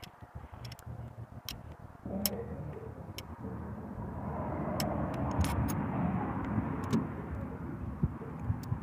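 A motor vehicle's engine running, a low hum that grows louder about two seconds in, with scattered light clicks of air-rifle parts being handled.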